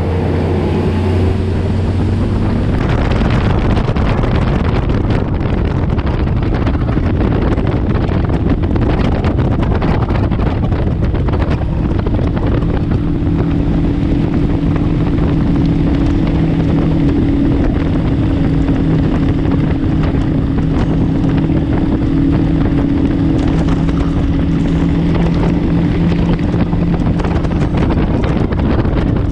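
Bass boat outboard motor running at high speed on the plane, with heavy wind noise on the microphone. The engine's tone settles higher about twelve seconds in.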